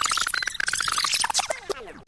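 Electronic DJ sound effect: a rapidly stuttering synthetic tone that sweeps up in pitch for about half a second, cuts out briefly, then sweeps back down and fades away.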